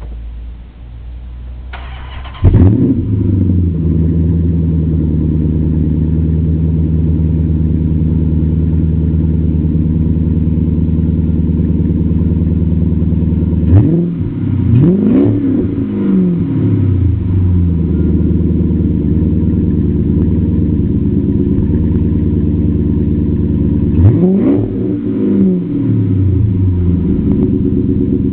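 2006 Dodge Magnum R/T's 5.7-litre Hemi V8 through a Bassani cat-back exhaust: the starter cranks briefly, the engine fires about two and a half seconds in and settles into a steady idle. It is revved in quick throttle blips about halfway through and again near the end, the pitch rising and falling back to idle each time.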